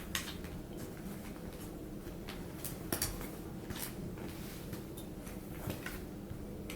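Scattered light clicks and rustles of an armrest lid and its leather cover being handled and stretched into place, over a steady low hum.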